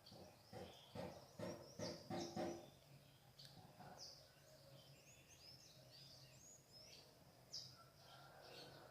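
Birds chirping in the dawn chorus: many short, high chirps throughout. In the first few seconds a run of about five louder, lower calls comes in quick succession, and later a faint steady low hum sits underneath.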